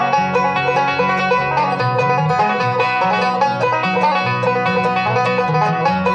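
Bluegrass band playing an instrumental passage, a five-string banjo picking quick runs of notes over guitar and bass, with a bass note about twice a second.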